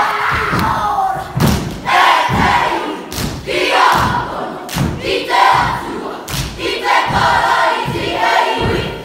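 A kapa haka group performing a haka: many voices shouting a chant in unison, punctuated by heavy foot stamps and body slaps every second or so.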